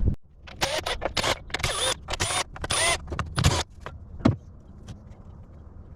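A quick, irregular run of sharp metallic clicks and clinks, with a faint ring, from hand tools and metal parts being worked on a jet ski engine. One more click comes near the end.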